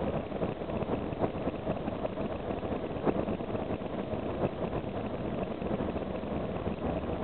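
Karosa B741 articulated city bus under way, heard from inside at the front: steady engine and road noise, with a few brief rattles.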